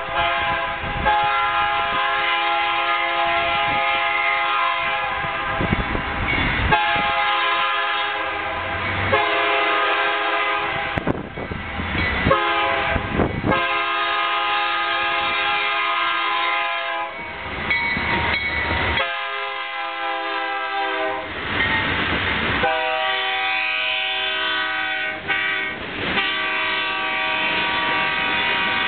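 Freight locomotive air horn sounding a chord in a long series of blasts with short breaks between them, over the rumble and clatter of freight cars rolling past.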